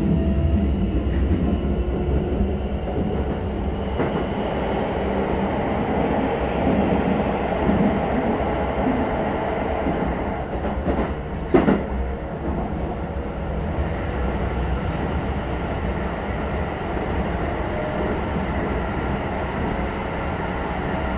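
Running sound inside a Keisei 3100-series electric train car with Toyo Denki hybrid SiC-VVVF drive: a steady low rumble of wheels on rail, and over it a thin high whine from the drive that rises slowly in pitch as the train gathers speed. A single short knock comes about halfway through.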